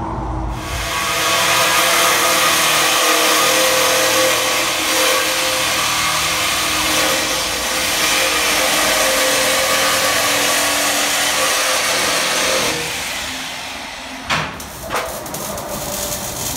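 Vehicle running at a steady pace, engine tone under a loud, even rush of road and wind noise, easing off about thirteen seconds in. Two short knocks follow near the end.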